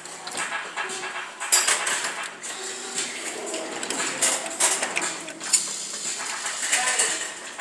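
Claw machine in play: irregular metallic clicking and clattering as the claw moves and lowers, with a few sharper clacks spread through.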